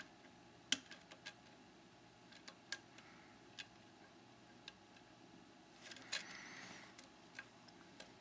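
Faint, irregular small metallic clicks and light scraping of a lock pick working the pin stacks of a Trioving 7-pin lock under light tension, with a short scrape a little after the middle.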